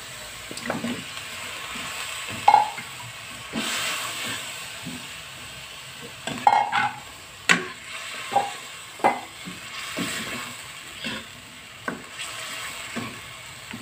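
Chicken pieces sizzling in hot fried spice paste in a nonstick wok, with a spatula scraping and knocking sharply against the pan as they are turned over.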